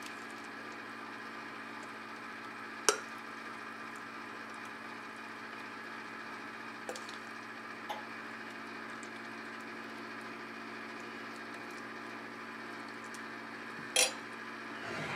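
Metal serving spoon scooping thick dip and knocking against a ceramic dish and bowl: a sharp clack about three seconds in, two faint ticks around eight seconds and another clack near the end, over a steady background hum.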